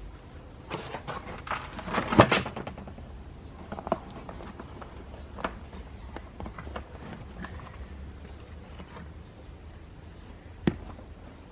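Damp soil being tipped out of a potato container and handled: a rustling, crunching burst that peaks about two seconds in, followed by a few scattered knocks.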